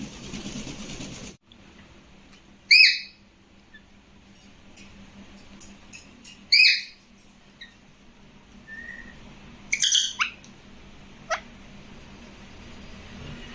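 Pet parrot whistling: two loud short whistles a few seconds apart, then a short softer note, a quick cluster of calls and a fast falling whistle.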